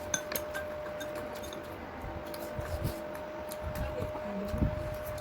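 Eating at the table: scattered light clicks and clinks of utensils against bowls, with a few soft low thumps, over a steady hum.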